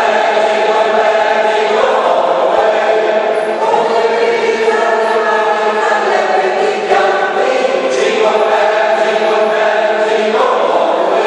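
Mixed choir of men's and women's voices singing sustained chords, moving from chord to chord every second or two.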